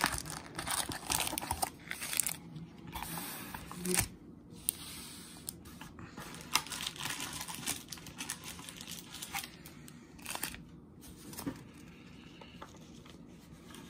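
Foil trading-card pack wrappers crinkling as the packs are handled, lifted out of a cardboard box and set down, with a few sharp taps. The crinkling is busiest in the first half and thins out later.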